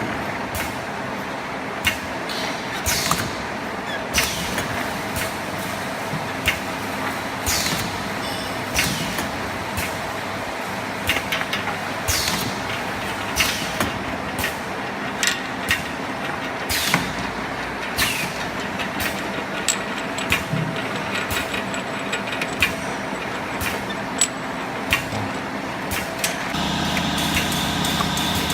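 Automatic perfume bottle filling and crimping machine running: a steady motor hum, broken every second or two by short, sharp pneumatic air hisses and clicks. About 26 seconds in, a second, steadier motor tone joins.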